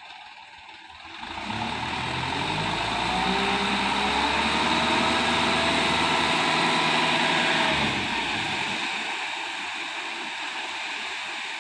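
Dump truck engine running as the truck passes close by. It swells up about a second in, holds loud, then fades after about eight seconds.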